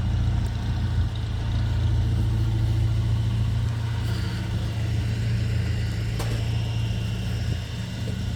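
A motor vehicle engine idling, a constant low hum.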